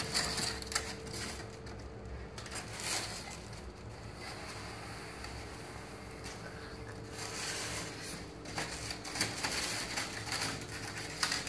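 Polystyrene foam sheet crunching and creaking as snowflake shapes, burned through by a hot nichrome-wire form, are pressed and pushed out of it. Scattered light clicks and rustles run over a faint steady hum.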